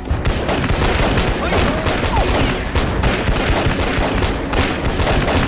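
Dense battle gunfire: many shots in rapid, unbroken succession, like a mix of rifle volleys and machine-gun fire.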